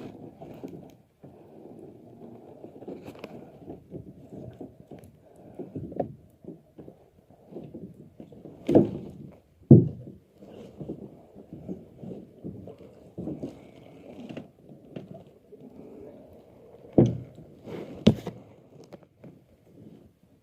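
Low, continuous rumbling handling noise with a series of dull knocks, the loudest about halfway through and again near the end.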